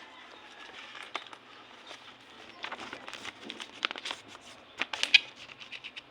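Irregular sharp clicks and crackles over a faint hiss, coming thicker and louder about three to five seconds in.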